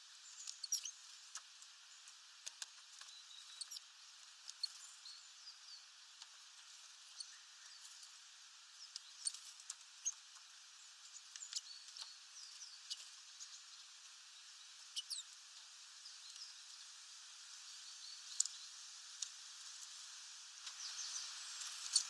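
Great tits at a seed feeder: faint, high, short chirps and squeaks scattered throughout, with a few sharp taps from seed-pecking.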